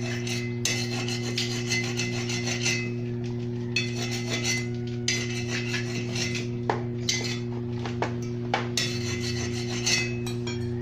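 A steady electrical hum under repeated bursts of rasping, scraping noise with sharp ticks between them, from work on a welded joint between steel square tube and angle bar.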